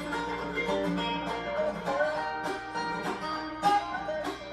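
Instrumental break of a karaoke backing track: country-gospel music led by plucked strings, with no singing.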